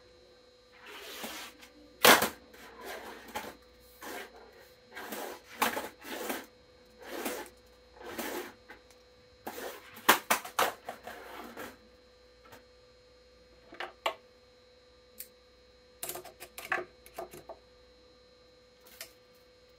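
Badminton string (Yonex Aerobite Boost) being pulled through the grommets of a racket frame in a run of short rasping pulls while the mains are strung on an electronic stringing machine, followed by a few scattered sharp clicks, under a faint steady hum.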